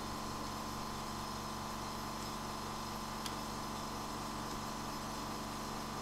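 Steady mechanical hum and whir of running workbench equipment, with a faint click about three seconds in.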